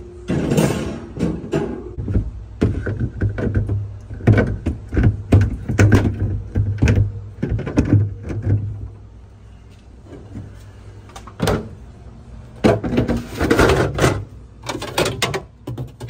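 Wire shelves being slid and seated back into a side-by-side refrigerator's freezer compartment: repeated clattering knocks and clicks, with a lull of a few seconds past the middle, over a steady low hum.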